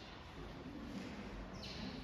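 Faint road noise inside a moving car: a steady low rumble with a brief hiss near the end.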